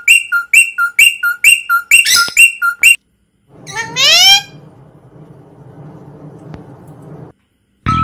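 Rosy-faced lovebird chirping in a fast, even run of short high notes, about four a second, that breaks off after about three seconds. About a second later comes one loud rising call, followed by a faint low hum that stops abruptly.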